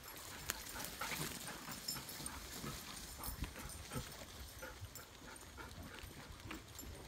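A pack of dogs and a walker moving along wet pavement: faint, irregular taps and scuffs of paws and footsteps, with a few faint dog whines.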